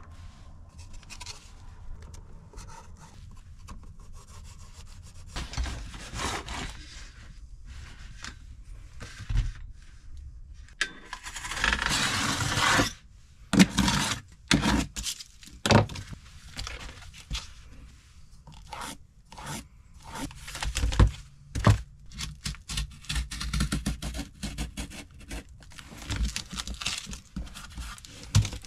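Hand-handling noises of a template and mount being fitted against a wall: irregular scrapes, rubs and knocks, with a longer, louder scrape near the middle.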